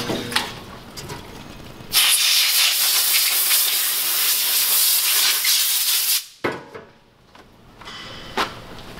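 Compressed-air blow gun hissing hard for about four seconds, starting and stopping abruptly, as it blows oil and washer solvent off a freshly assembled aircraft shock absorber. Light handling clatter comes before and after it.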